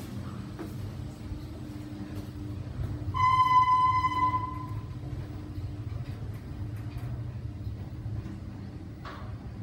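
Steady low hum of a Schindler 5400 AP traction lift car running. About three seconds in, a single electronic chime sounds loudly and fades away.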